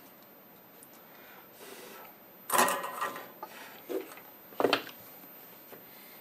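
Handling noise of soldering work on a circuit board mounted on a metal chassis: a burst of scraping and rubbing clatter from tools and wires about halfway through, then two short sharp knocks.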